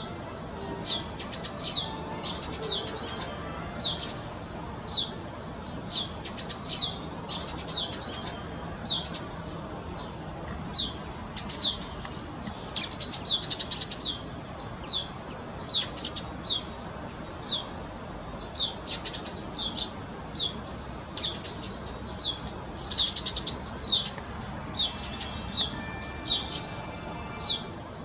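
Eurasian tree sparrow chirping: short, sharp, downward-sliding chirps repeated about once or twice a second, now and then in quick runs of several, over a steady low background noise.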